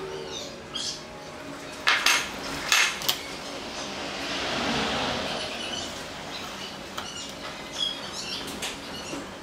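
A steel square and a long steel rule clinking and tapping as they are handled and set down on pine boards during marking out: several sharp taps in the first three seconds, then a longer swishing noise about halfway through.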